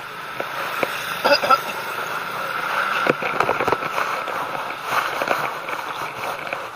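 Bicycle ridden along a damp, rough lane, heard from the handlebars: a steady rush of tyre and wind noise with many small rattles and clicks from the bike over the bumps.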